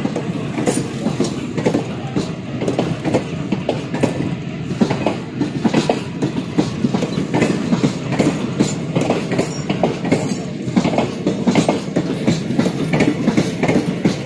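Indian Railways passenger coaches rolling past close by, their wheels clattering over the rail joints in a continuous clickety-clack over a low rumble.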